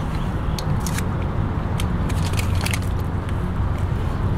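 Scattered small metallic clicks and rattles from a fish lip-grip tool being handled and clamped onto a landed striped bass, over a steady low rumble.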